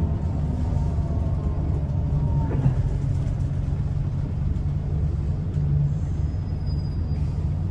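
Scania L94UB single-deck bus heard from inside the cabin while underway: a steady low rumble from the engine and ZF automatic gearbox.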